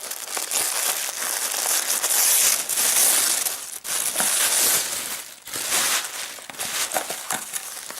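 Packaging crinkling and rustling loudly as a subscription box is opened and its wrapping pulled back by hand, with a couple of short pauses.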